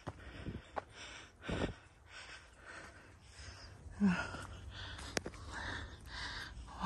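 A hiker breathing hard close to the microphone, in repeated short breaths from the exertion of climbing uphill stone steps, with a few low thuds of footsteps.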